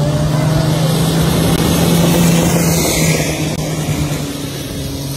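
Engine of a modified longtail racing boat running flat out as the boat speeds past close by. The engine hum is steady and low, with a rush of water spray; it is loudest about two seconds in and then fades as the boat moves away.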